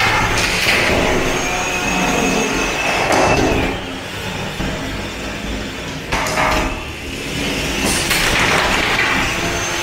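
Antweight combat robots fighting: the spinning weapons of a drum spinner and a belt-driven vertical spinner whine high and steady, cutting off after about three and a half seconds and picking up again near the end. Sharp knocks of weapon hits on the plastic robots land near the start, about six seconds in and about eight seconds in.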